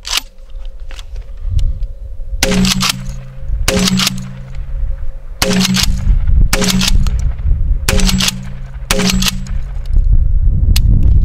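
Remington TAC-14 DM 12-gauge pump-action shotgun fired six times in quick succession, about a second or so apart over six and a half seconds, after the first couple of seconds. Each shot is a sharp blast with a quick second crack and a brief low ringing after it.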